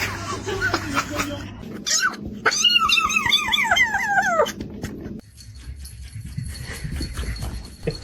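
A dog whining: a couple of short high yips, then a long wavering whine that falls away at the end.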